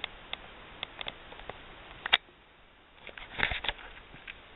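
A few scattered short clicks and knocks over a faint background, the sharpest about two seconds in and a small cluster a little after three seconds.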